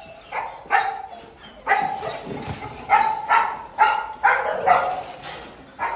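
Several kennelled dogs barking in excitement at feeding time as food is carried past their kennels: a few barks at first, then a steady run of about two barks a second.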